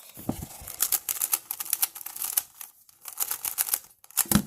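Rubik's cube being turned fast, a rapid run of plastic clicks and clacks as the layers snap round during the last-layer steps of a solve, with a louder knock near the end.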